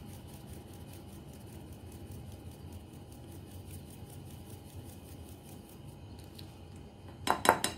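Flour and sugar being sifted through a wire mesh sieve shaken over a bowl: a faint, soft rhythmic rustle about four times a second. Near the end, a quick cluster of three or four sharp knocks.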